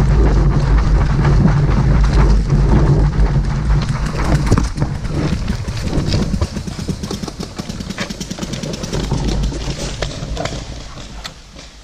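Footsteps crunching on gravel, with scattered sharp clicks, over a loud low rumble that fades away near the end.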